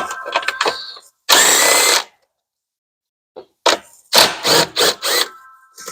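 A handheld power tool, such as a cordless drill or power ratchet, runs in one short burst of under a second while bolts are being worked off an engine. Metal tools and parts click and clank before and after it.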